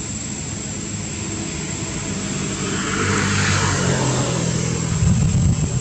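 Engine drone passing by: steady low engine hum with a rushing noise that swells to its loudest about three and a half seconds in, then eases off.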